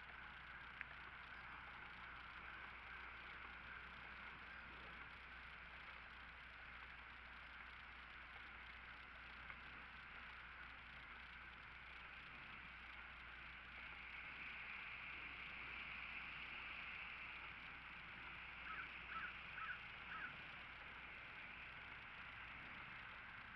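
Quiet outdoor ambience with a faint steady hiss. Near the end, four short high-pitched calls come in quick succession.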